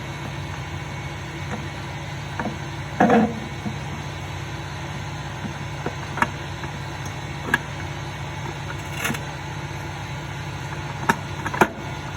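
Scattered metallic clunks and taps as a clutch-drum assembly is worked by hand into an E4OD automatic transmission case, the loudest about three seconds in, over a steady low hum.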